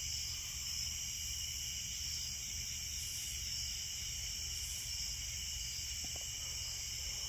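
Night-time insect chorus: a steady, high-pitched, layered trilling that goes on without a break.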